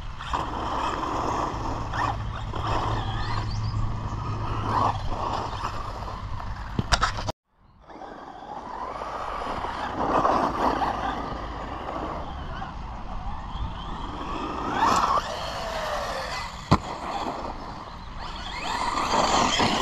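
Brushless electric RC monster truck with a 3500 kV motor running and manoeuvring, its motor whine rising and falling with the throttle. The sound cuts out briefly about seven seconds in, and there is a single sharp knock near the end.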